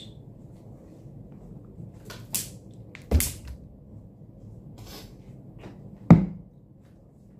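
Things being set down on a bedside table: a sharp knock about three seconds in as a plastic water bottle goes down, and a louder, fuller knock about six seconds in as a glass jar is put down. A few brief rustles come between them.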